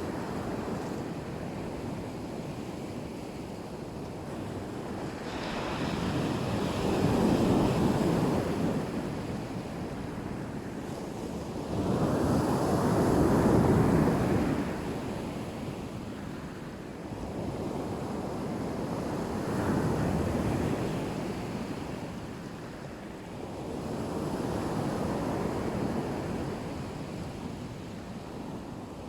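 Black Sea waves breaking on the shore, surf that swells and ebbs, with a louder surge every six seconds or so.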